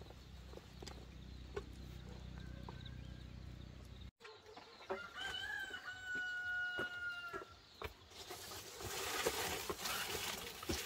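A rooster crows once, a long held call starting about five seconds in. Before it a low steady hum breaks off abruptly, and after it comes a rustling hiss.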